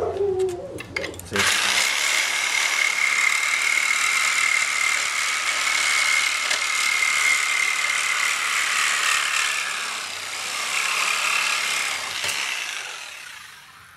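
Reciprocating saw (Sawzall) cutting off a protruding 5/16-inch bolt flush with a plywood floor. It starts about a second and a half in and runs steadily with a high whine, then dies away near the end as the cut finishes.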